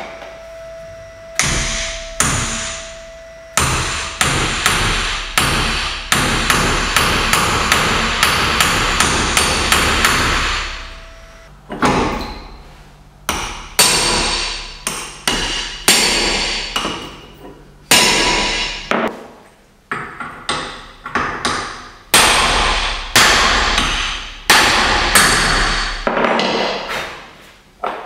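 Repeated metal-on-metal hammer blows on a steel bar set against a BMW E39's rear wheel hub, each strike ringing briefly. The blows come in a fast, dense run in the first half, then as slower, separate strikes.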